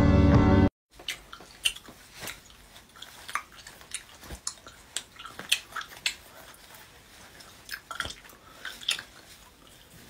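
Music cuts off abruptly under a second in. It is followed by quiet, irregular wet mouth clicks and smacks, two or three a second, that sound like chewing.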